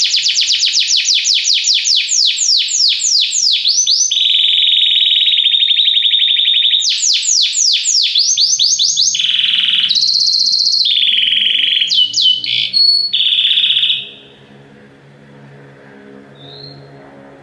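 Domestic canary singing a long song of fast rolled trills: runs of rapid falling sweeps, steady buzzing rolls and short bright phrases, one after another. The song breaks off suddenly about fourteen seconds in.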